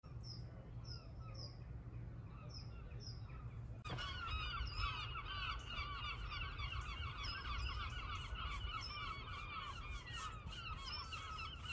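A few sparse high bird chirps, then about four seconds in a flock of birds starts up in a dense, continuous chatter of overlapping calls, over a low steady rumble.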